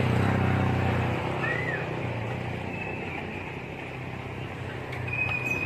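A motor engine running steadily, louder early on, easing off, then building again near the end, over a steady high hiss. A high, steady whistling tone starts near the end.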